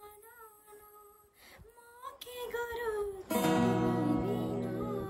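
A woman singing a Nepali song along to music she hears only through her earphones. Her voice is quiet and wavering at first, then grows much louder and fuller about three seconds in.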